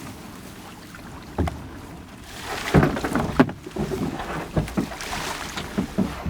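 Knocks and clatter on a boat: one sharp knock about a second and a half in, then a busy run of knocks from about two and a half seconds on.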